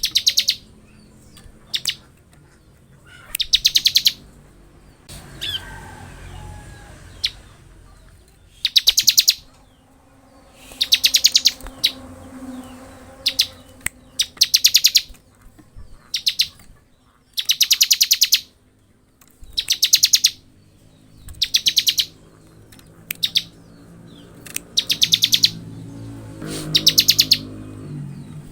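Bar-winged prinia (ciblek) singing its rapid rattling 'ngebren' song: repeated bursts of fast, buzzy pulses, each under a second long, coming every second or two.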